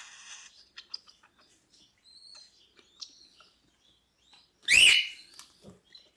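Hand-reared cockatiel chicks making small high chirps and soft clicks, with one loud, short, rising-and-falling chirp near the end.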